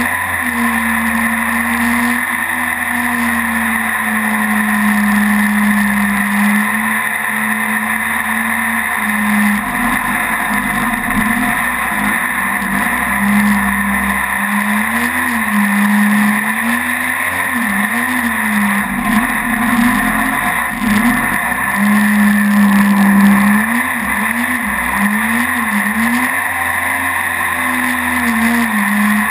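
Mini jet boat's engine running under way, a steady drone whose pitch dips and rises several times in the second half as the throttle changes, over a constant rushing noise.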